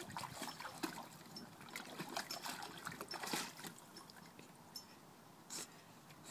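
Water in a shallow kiddie pool splashing and trickling as an English bulldog puppy moves about in it: a run of small, irregular splashes that thin out after about four seconds.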